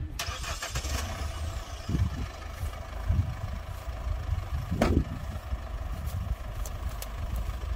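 Small tractor's diesel engine starting with a sudden surge right at the beginning, then running steadily with a few heavier thumps. Its dust-choked air filter has just been blown clean with compressed air.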